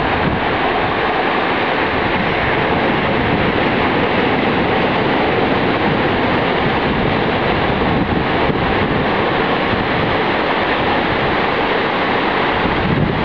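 Ocean surf breaking and washing up a sandy beach, a steady rush of water with no lull, with wind buffeting the microphone.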